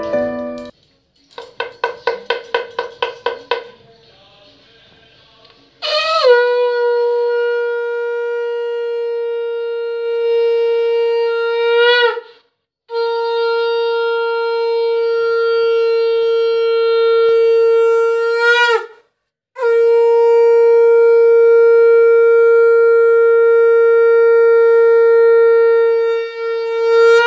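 Conch shell (shankha) blown in three long, loud, steady blasts at one pitch, each ending with a short downward bend in pitch, as part of a Hindu puja. A brief run of quick ringing strikes comes first.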